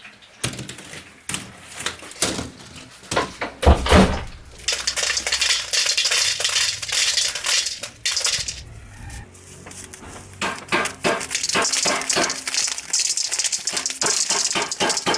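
Dried corn kernels clattering against a metal container: scattered clicks for the first few seconds, then a dense, fast rattle that pauses briefly near the middle and resumes.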